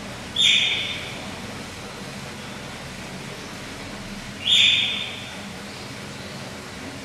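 Eurasian otter calling: two short, high, loud calls about four seconds apart, each starting suddenly and fading within about half a second, over a steady low hum.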